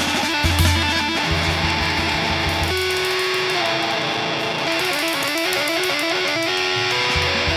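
Improvised music for electric guitar and drum kit: fast runs of guitar notes over busy drumming with a constant wash of cymbals.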